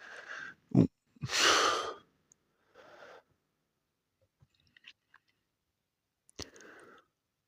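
A person breathing close to the microphone: a loud, sharp exhale about a second in, softer breaths later, and a few faint small clicks around the middle.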